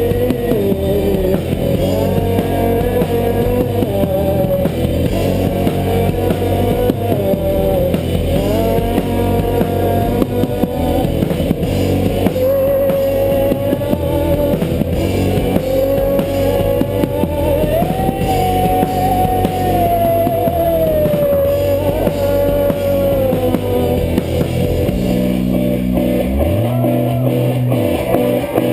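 Rock band playing an instrumental passage: a sustained lead guitar line bending and gliding in pitch over drums and bass guitar, with a low bass slide near the end.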